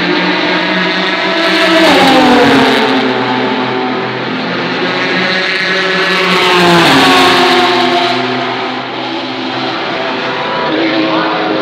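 Race cars passing at speed on the straight, their engine pitch dropping sharply as each goes by. There are two loud passes, about two seconds in and again about seven seconds in, over the steady engine sound of other cars on track.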